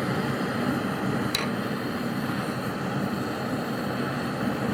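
Gas torch flame burning with a steady hiss as it is held on a stainless steel padlock cylinder, with a single sharp click about a second in.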